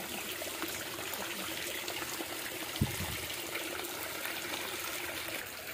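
Shallow stream water trickling and flowing steadily, with a single short thump about three seconds in.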